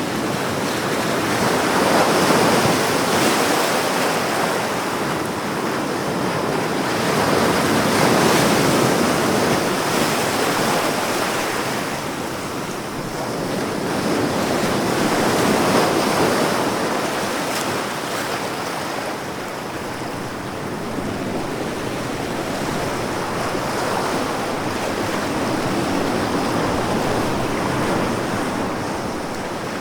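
Ocean surf: waves breaking and washing in as a continuous rush that swells and falls back every six to eight seconds.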